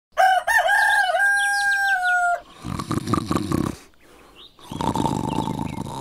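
A rooster crows once, a long call held for about two seconds that drops slightly at the end. It is followed by two long rasping snores from a sleeper.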